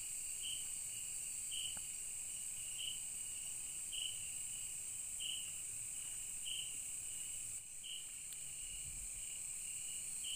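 Night insects chirring steadily: a high continuous buzz with a lower trill that swells about once every second and a quarter.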